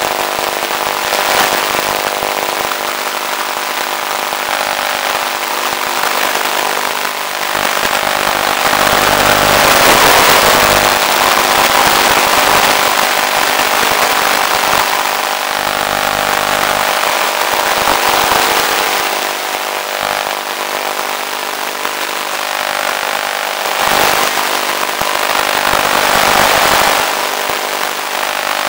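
Electric motor and propeller of an FPV RC plane running steadily in flight, a buzzing drone under heavy wind rush on the onboard microphone. The wind rush swells about a third of the way in and again near the end.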